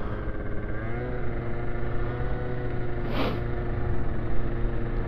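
Moped engine running under way at cruising speed, its pitch rising a little about a second in, with wind rumbling on the helmet-mounted microphone. A short hiss about three seconds in.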